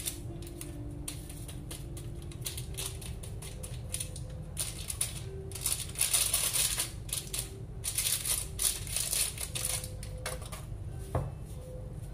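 Plastic packaging crinkling and rustling in irregular crackly bursts with small clicks, loudest about halfway through and again a couple of seconds later.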